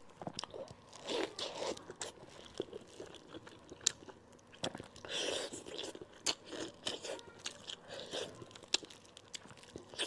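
Close-up eating sounds of braised monkfish: wet chewing and mouth smacks with many sharp clicks and short crunches.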